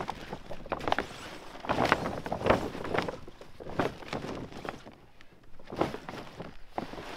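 A thick black pond liner being unfolded and shaken out over the hole, its stiff creased sheet rustling in uneven bouts, loudest about two to three seconds in and again near six seconds.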